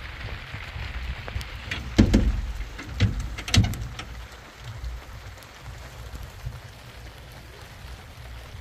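Rain with wind buffeting the microphone: a steady low rumble and hiss. Three sharp knocks stand out about two, three and three and a half seconds in, the first the loudest.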